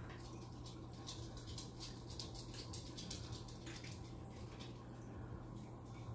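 Biocube 32 reef aquarium running: water trickling and bubbling in many small irregular splashes over a steady low pump hum.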